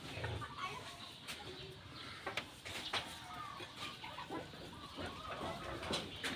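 Chickens clucking with short repeated calls as they feed, with a few sharp taps scattered through.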